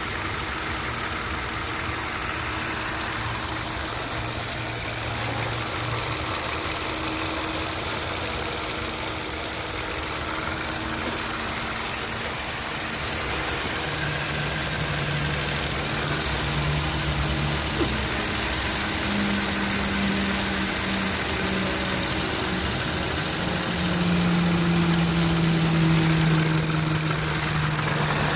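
Engine running with a ticking noise, the abnormal sound the owner is showing as a sign of a fault. The engine's note shifts a few times and grows a little louder near the end.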